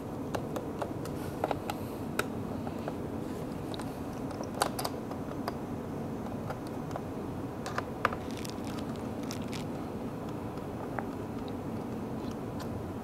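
A small Phillips #0 screwdriver turning captive screws in the bottom panel of a Lenovo ThinkPad E14 laptop: scattered faint clicks and scrapes of the bit and screws against the plastic, over a steady background hiss.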